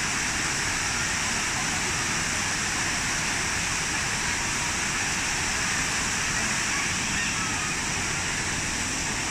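Falling water rushing steadily and without a break.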